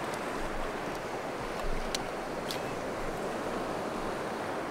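Sea water lapping around a small boat, with wind rumbling on the microphone. Two faint ticks about two seconds in, half a second apart.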